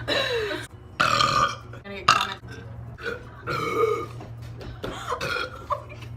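Teenage girls burping, about five burps in a row, some long and some short. The first burp falls in pitch.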